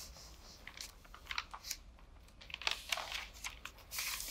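Sheets of paper rustling and crinkling as printed letters are handled, in short irregular rustles that grow louder in the second half.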